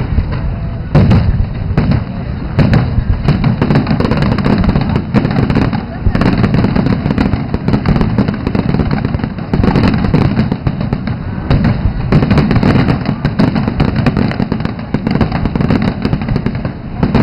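Fireworks display: aerial shells bursting one after another in a dense barrage of bangs and crackle, with a heavy low rumble underneath.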